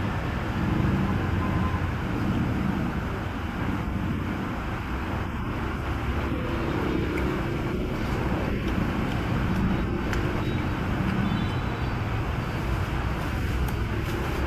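Steady background noise of street traffic, a low rumble that swells and fades slightly, with no speech.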